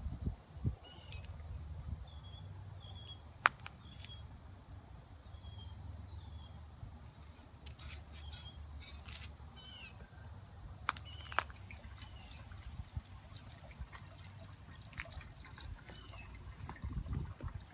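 Scattered clicks and knocks, the loudest one about three seconds in, as a baby goat moves about with a small spoked metal cart wheel caught on it, over a steady low rumble. Small birds chirp now and then.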